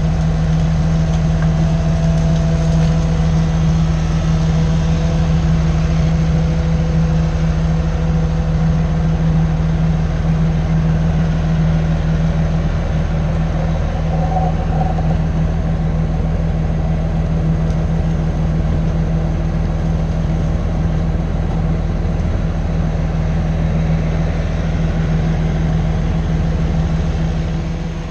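Diesel engine of heavy equipment running steadily close by, a constant low drone that drops off slightly near the end.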